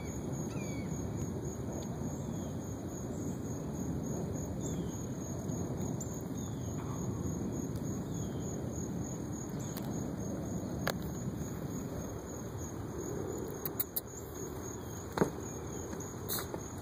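Crickets trilling steadily with a few faint bird chirps over a dull, even rushing noise. A few sharp clicks come near the end.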